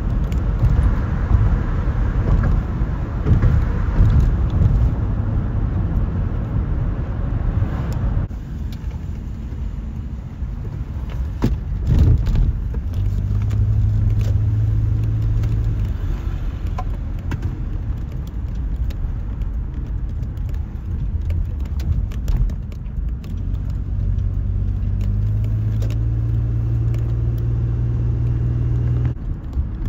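Tyre and road noise heard inside a moving car. For the first eight seconds or so the tyres hum over a bridge's grooved deck, a fuller, hissier sound that drops away as the car leaves the bridge. Plainer road rumble follows, with a single knock about twelve seconds in and a low steady hum at times.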